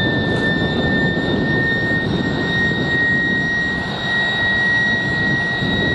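Heavy military vehicle's engine running loudly, with a steady high whine over a rumble; the whine creeps slightly up in pitch.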